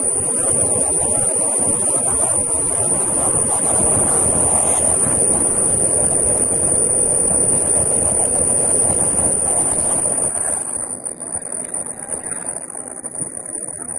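Ultrasonic quilting machine running: a steady high-pitched whine over a dense mechanical rushing noise, which eases off about ten seconds in.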